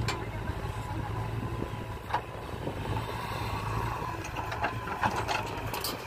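JCB 3DX backhoe loader's diesel engine running steadily under load while the backhoe arm digs and lifts a bucket of mud, with a few sharp knocks, most of them in the last two seconds.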